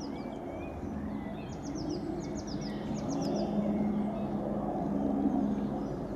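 A distant Nissan 4x4's engine pulling steadily up a grassy slope, a low drone. Small birds chirp over it, with a run of quick, high, falling chirps in the first half.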